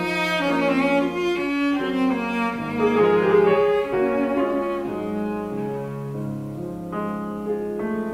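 Cello and grand piano playing classical chamber music together: the bowed cello carries a melody over the piano, moving to longer, lower held notes in the second half.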